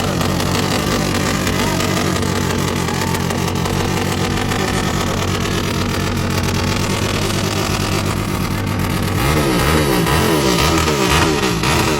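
Honda Sonic motorcycle engine, billed as 400cc, running at a steady idle, then revved in a series of quick throttle blips, rising and falling in pitch, from about nine seconds in.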